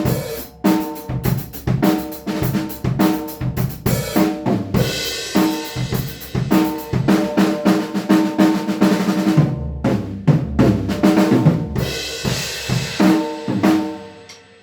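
Acoustic drum kit played as a groove and fills: snare, bass drum, toms and hi-hat, with cymbal crashes washing over it twice, once about five seconds in and again near the end. The playing stops and rings out just before the end.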